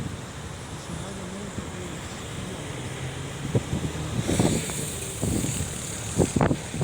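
White pickup truck's engine running with a low rumble, while wind buffets the microphone in gusts that grow stronger about four seconds in.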